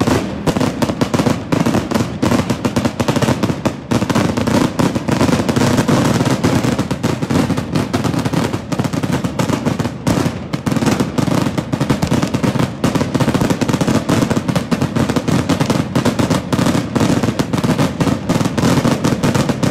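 Fireworks barrage: orange streaks of many rockets or shots going up at once, giving a dense, unbroken run of sharp cracks and bangs, many a second.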